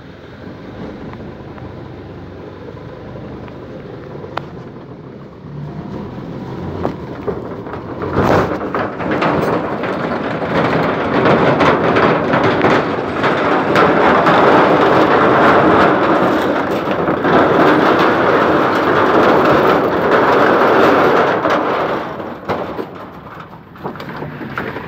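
A vehicle driving along a wet, muddy dirt road, its tyres splashing and churning through mud and water. The noise grows much louder about eight seconds in and falls away near the end.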